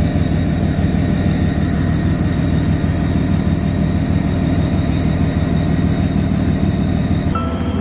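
A steady low mechanical hum with a faint fine pulsing, unchanging for several seconds; a few new higher steady tones come in near the end.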